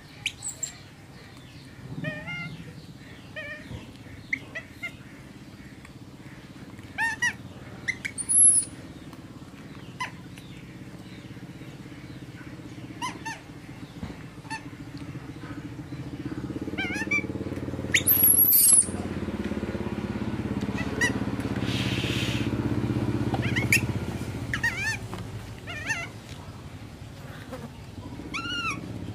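Baby macaque giving short scattered squeaks and chirps while it feeds, with two shrill high squeals among them; the second is the loudest sound. A low rumble swells through the middle and then fades.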